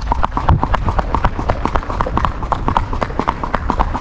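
Horse's hooves striking an asphalt road in a rapid, even clip-clop, roughly eight to ten hoof strikes a second: the horse is moving in its paso gait.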